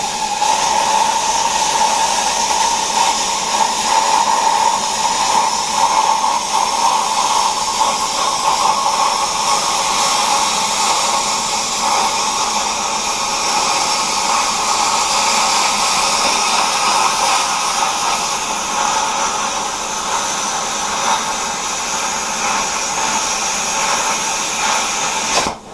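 Eastwood Versa Cut 40 plasma cutter cutting through an exhaust pipe: a loud, steady hiss of the arc and torch air that starts abruptly and cuts off just before the end.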